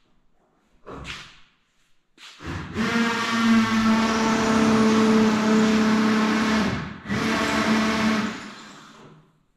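An electric motor runs with a steady hum and hiss, starting suddenly, cutting out briefly after about four seconds, then running again for about a second before fading away. A short knock or rustle comes about a second in.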